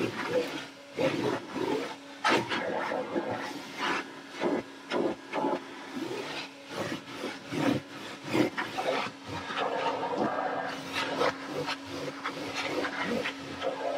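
Rough scraping and rubbing strokes on the van's interior carpet, irregular, a few a second, as the back of the van is scrubbed and cleaned, over a faint steady hum.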